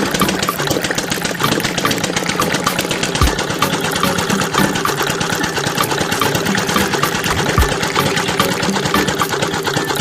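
Small motor of a miniature model machine running steadily, with a fast, even rattle and a low thump twice.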